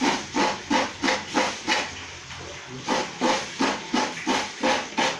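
Half coconut scraped against the serrated blade of a stool-mounted hand coconut grater (kudkuran): rhythmic scraping strokes about three a second, with a short pause about two seconds in.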